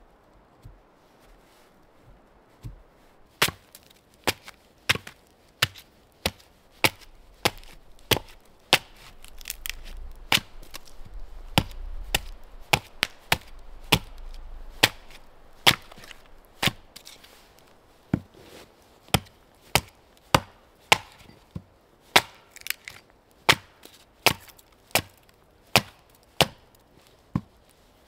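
A hatchet chopping into wood with steady, sharp strikes, about one every three-quarters of a second. The strokes start a few seconds in after a couple of faint taps.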